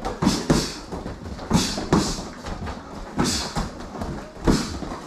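Punches and strikes landing on padded gloves and a body protector, mostly in quick pairs, each with a short, sharp hiss of breath from the striker.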